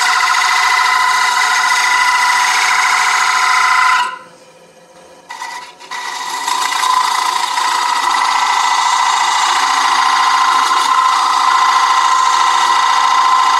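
Beading tool cutting beads into a maple platter spinning on a wood lathe, giving a loud, high-pitched squeal. The cut stops about four seconds in, touches briefly a second later, then runs on steadily for the rest.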